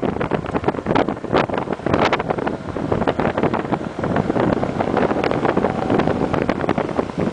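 Heavy wind buffeting the microphone on a moving motorcycle, with the vehicle's running noise underneath, gusting unevenly.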